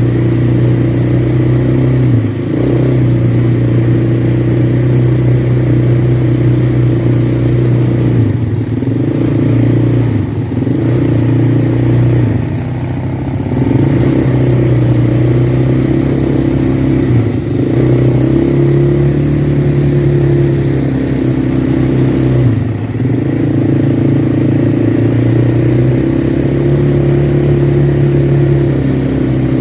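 Quad bike (ATV) engine running steadily, its pitch and level briefly dipping and recovering about six times.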